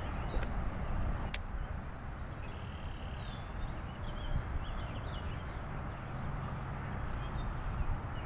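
Wind buffeting the microphone in a steady low rumble, with one sharp click about a second in and a few faint bird chirps in the middle.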